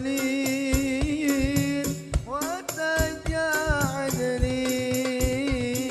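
Sholawat sung by a male voice in long, ornamented held notes over a hadroh frame-drum ensemble keeping a steady beat.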